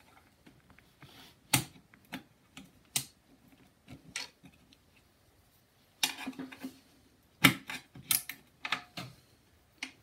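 Sharp clicks and knocks of a screwdriver and a seat safety switch against a plastic mower seat pan as the switch is pushed back into its mounting hole. A few single clicks come first, then a quicker run of clicks in the second half.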